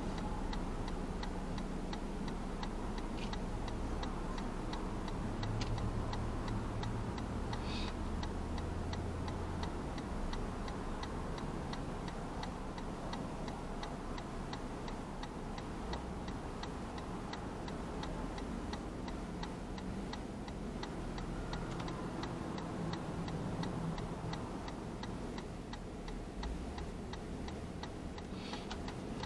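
A car's turn-signal indicator ticking steadily in the cabin of a stopped car, over a low steady rumble that swells briefly as traffic passes about six to ten seconds in.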